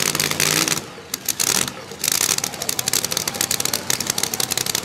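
Modified two-wheel-drive pulling truck's engine holding a steady note for under a second, then idling with a fast, choppy rattle after the pull.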